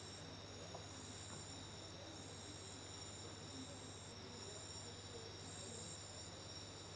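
Night chorus of crickets trilling steadily in several high-pitched tones, the highest ones starting and stopping every second or so, faint, over a low steady hum.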